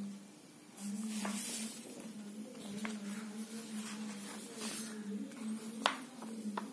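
Paper rustling and handling as sheets are moved and pages shifted, with a few light clicks and one sharp tap near the end, over a steady low hum.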